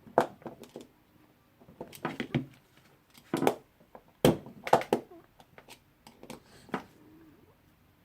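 Irregular metal clicks, knocks and scrapes from a screwdriver prying at a spring ring (circlip) on the hammer piston of a Bosch rotary hammer drill, in small clusters of taps.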